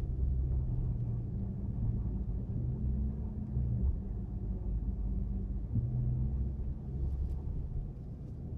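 Low, rotating-sounding howl from the rear end of a Chrysler 300 SRT Core turning slowly in tight circles, swelling and fading every second or two. The owner suspects the rear differential.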